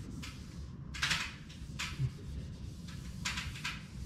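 An alcohol-soaked towelette rubbed by hand over a vinyl-wrapped car hood: several short swishing strokes, a second or so apart, the strongest about a second in, over a low steady background rumble.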